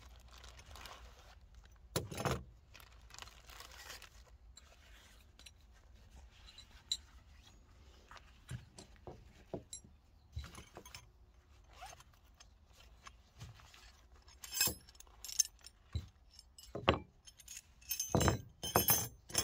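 Rustling of a plastic zip bag and a cloth tool pouch being opened, then small metal hand tools (open-end spanners, a screwdriver and a tubular spark-plug wrench) clinking and jangling against each other, with the loudest clinks in the last few seconds.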